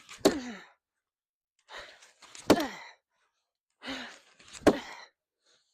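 A man's heavy breathing under physical effort: three loud voiced exhales, each with a sharp onset and falling pitch, about two seconds apart, with a breath drawn in before each.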